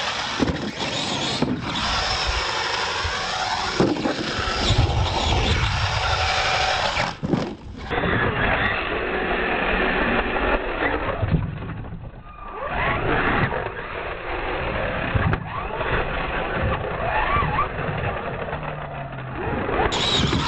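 R/C monster trucks running on a dirt course, their motors whining up and down in pitch as they accelerate and jump ramps, with occasional sharp knocks.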